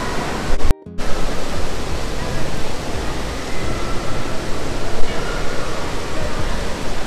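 Steady indoor water park ambience: rushing, spraying water from the splash-pad fountains and water features mixed with a distant crowd of voices. A brief dropout about a second in breaks it, then the same din carries on.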